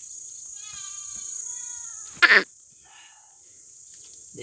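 Steady high insect buzz. Over it, a thin, high, wavering call lasts about a second and a half. Just after two seconds comes a short, loud, noisy burst.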